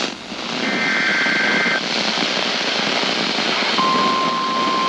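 NOAA Weather Radio alert signalling over radio hiss. First comes a warbling SAME digital header burst of about a second, the coded start of a new warning. Near the end the steady single-pitch 1050 Hz warning alarm tone begins.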